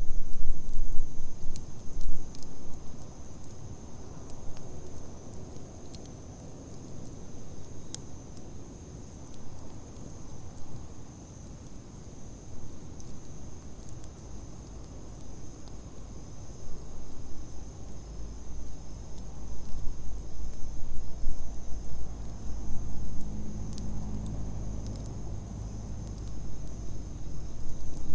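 Crickets chirping steadily in a high, even trill while a campfire burns with scattered small crackles. A low rumble grows louder near the end.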